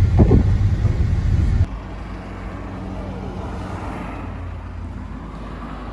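Minibus cabin noise while driving: a steady low engine and road rumble. It cuts off abruptly about a second and a half in, and a much quieter outdoor background with a faint steady hum follows.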